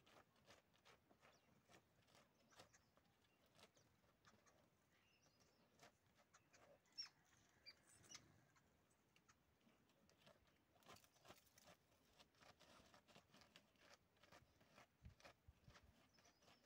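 Faint, irregular scratching, rustling and light clicks of a dog's paws and nose on dry dirt and dead leaves as it roots along the ground.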